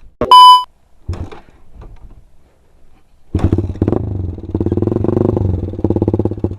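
A short, loud beep, then, about three seconds in, a Suzuki Satria FU's single-cylinder four-stroke engine running loud through an aftermarket Pro Liner exhaust, its firing pulses plainly heard and its loudness rising and falling.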